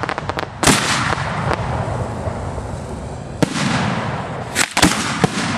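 Fireworks going off close by. A quick string of crackling pops comes first, then a loud bang a little under a second in with a long rumbling echo, another bang just past three seconds, and two bangs close together near the end.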